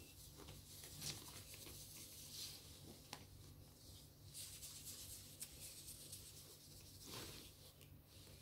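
Faint rustling and scratching of a cloth as a cat plays in it, with a few short scratchy strokes among the rustle.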